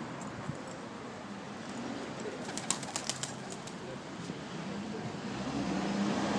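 A flock of domestic Kirkuk pigeons on a rooftop, with a quick flurry of wing flaps and clicks about two and a half seconds in, over a steady background hiss. A low hum swells near the end.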